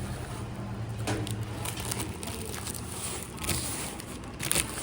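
Low steady hum with a few short crinkles and rustles, as a pastry is broken and its paper wrapping handled.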